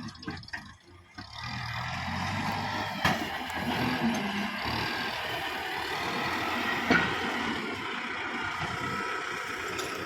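Kubota MU5501 tractor's four-cylinder diesel engine running steadily after a brief dip in the first second, with two short sharp knocks.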